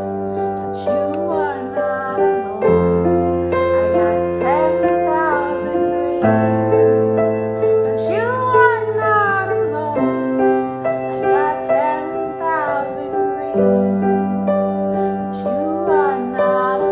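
Slow music: sustained keyboard chords that change every three to four seconds, under a melody line that slides and bends between notes.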